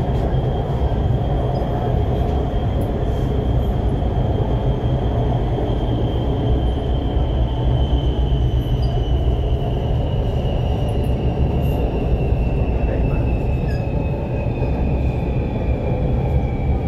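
Orange Line metro train running, heard from inside the car: a steady low rumble with a high whine that slowly falls in pitch.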